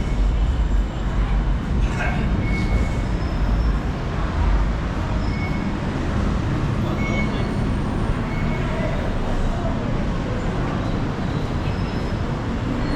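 Busy city street traffic: a steady rumble of road vehicles running, with a few faint short high chirps over it.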